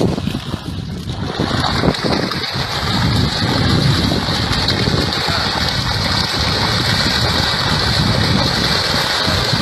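Water splashing and churning where a school of piranhas tears at a fish at the surface, under wind noise on the microphone.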